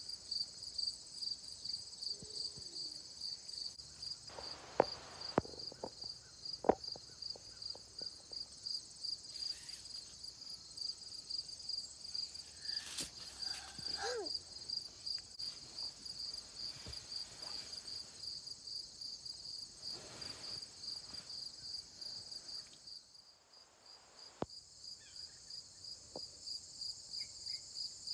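A cricket chirping steadily, high chirps repeating about two or three times a second, falling silent for a moment near the end. A few sharp knocks and rustles come through in the first part.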